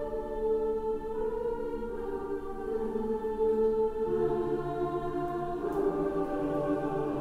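Choral music with sustained, slow-moving chords, playing through a pair of Boston Acoustics CR6 bookshelf speakers. Lower voices come in about four seconds in.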